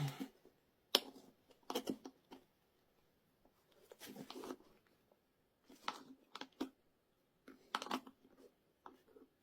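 Scattered short scrapes, clicks and knocks of tools and rubber as the 8.5-inch rear tyre of a Xiaomi Pro 2 e-scooter is pried at on its rim, a tyre that is very hard to get off.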